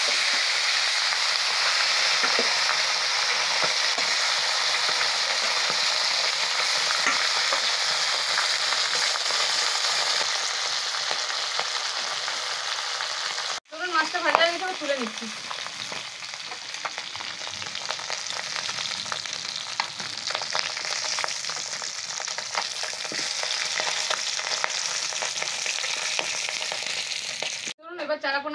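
Small tengra catfish frying in hot mustard oil in a kadai: a steady, dense sizzle. It cuts off abruptly about halfway through and resumes a little quieter.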